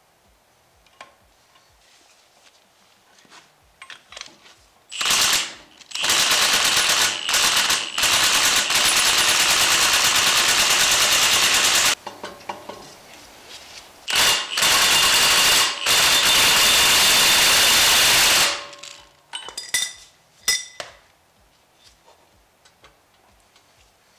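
Milwaukee FUEL cordless impact wrench hammering the pinion yoke nut tight on a GM 9.5-inch 14-bolt axle, in three runs: a short one about five seconds in, a long one of about six seconds, then another of about four seconds. Light clicks and clinks of tools come before and after.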